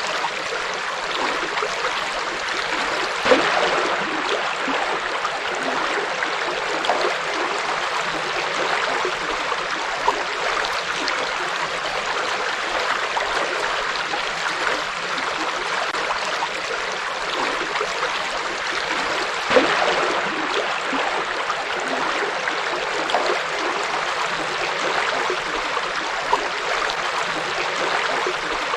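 Forest river flowing: a steady rush of water with the odd louder splash, most clearly a little over three seconds in and again about twenty seconds in.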